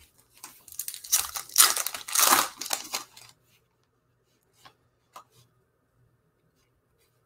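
A 2014 Topps Update baseball card pack's wrapper being torn open and crinkled for about three seconds, followed by a couple of light clicks as the cards are handled.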